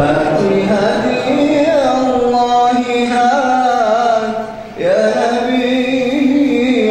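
A male munshid singing an unaccompanied Islamic nasheed in long, drawn-out melismatic notes whose pitch bends and ornaments. The voice breaks off briefly about four and a half seconds in, then comes back.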